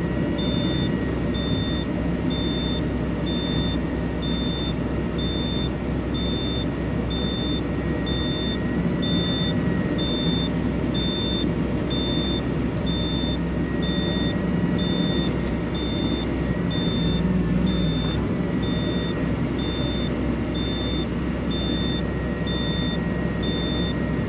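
Excavator's diesel engine and hydraulics running steadily, heard from inside the cab, with a high electronic warning beep repeating about once a second.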